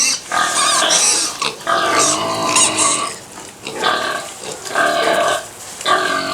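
Pigs squealing over and over, about five loud, shrill squeals in a row with short breaks between them.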